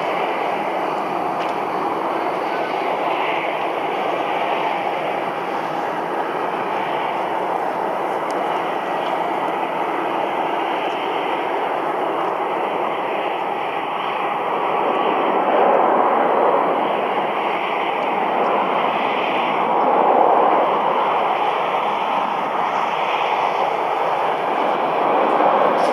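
Airbus A318's CFM56 turbofan engines running at low thrust as the jet taxis and lines up on the runway: a steady rushing jet noise that swells briefly a few times.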